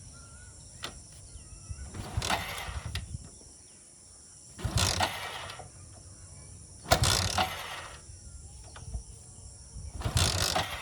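Motorcycle kick-starter being kicked four times, each stroke a short ratcheting, clattering rush of under a second; the engine does not catch and run.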